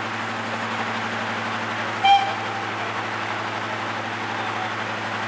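A single short toot on a locomotive whistle about two seconds in, over the steady hum of an idling diesel locomotive and the steam tank engine with its coaches running past.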